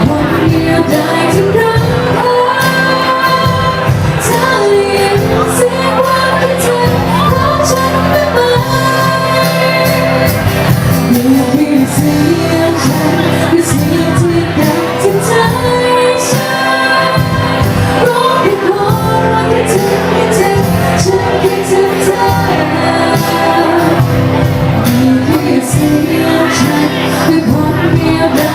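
Live band playing a Thai pop song, with a lead vocal singing the melody over steady band backing and drums.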